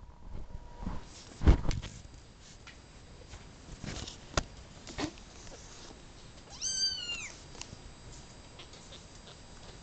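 A young kitten gives one short, high-pitched mew about seven seconds in, its pitch rising and then falling. Before it come a few bumps and rustles of handling, the loudest about a second and a half in, and some light clicks.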